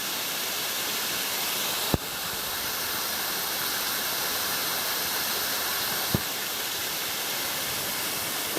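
Creek cascade waterfall rushing as a steady hiss, with two brief clicks about two and six seconds in.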